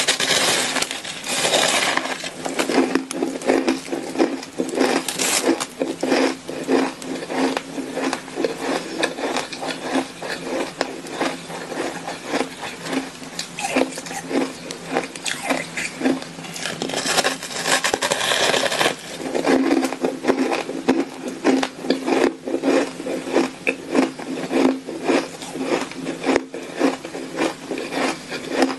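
A person biting into and chewing fluffy shaved ice close to a lapel microphone: steady, rapid crunching, about two or three crunches a second.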